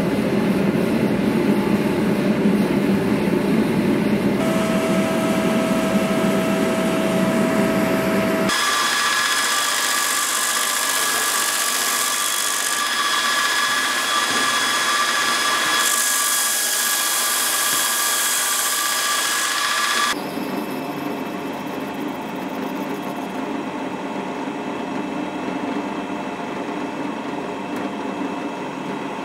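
Workshop machining in three parts. First, a power grinder grinds steel, with a steady tone joining about halfway through. Then a surface grinder's wheel runs with a high steady whine and hiss. For the last third, a drill press bores into a block of grenadillo wood.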